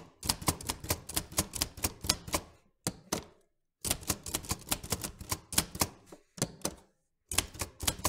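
Manual typewriter keys clacking in quick runs of about six or seven strokes a second, broken by short pauses.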